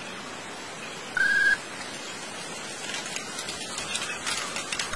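Steady hiss of outdoor background noise, with one short, high warbling call about a second in and faint crackling clicks in the second half.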